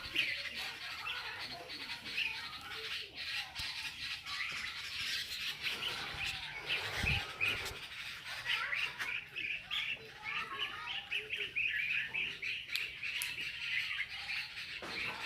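Birds calling over and over, a steady stream of short, high squawking calls, with one low thump about seven seconds in.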